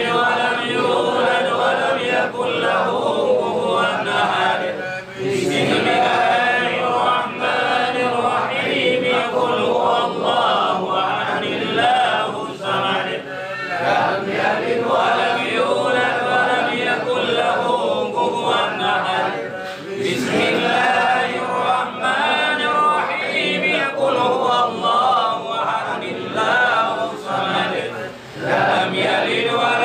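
A group of men chanting Islamic recitation in unison, a tahlil/samadiyah prayer, with a few short pauses for breath.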